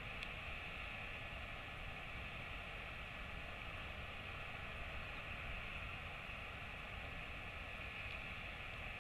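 Steady wind noise and hiss on an outdoor wildlife camera's microphone, with a couple of faint clicks.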